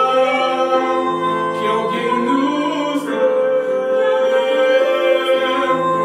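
A man and a woman singing a duet together, holding long notes, over a digital piano accompaniment.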